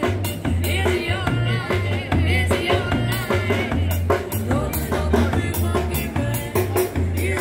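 Upbeat song with a steady drum beat, strong bass and a singing voice.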